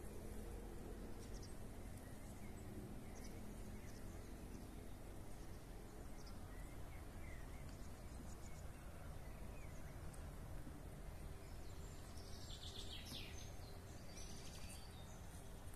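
Faint outdoor ambience: a low steady rumble with scattered short bird chirps, and a brief flurry of chirping near the end.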